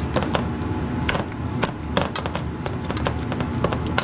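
Metal potato masher knocking and scraping against a stainless steel pot while mashing potatoes: irregular clicks and taps, several a second, over a steady low hum.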